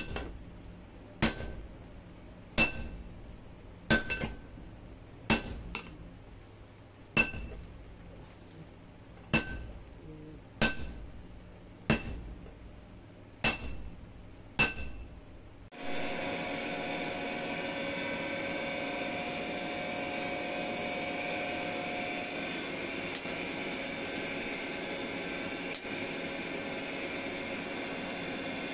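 Hammer blows on red-hot leaf-spring steel on an anvil, about one every second and a half, each with a short metallic ring, as the boti blade is forged. About sixteen seconds in the hammering stops and a steady machine hum with a whine takes over, the forge's air blower fanning the fire.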